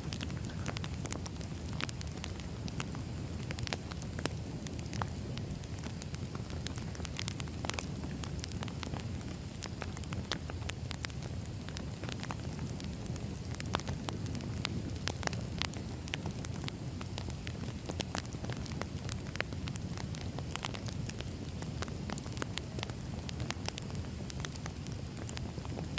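Burning firewood crackling. A steady low noise of the flames runs under frequent, irregular sharp pops and snaps from the logs.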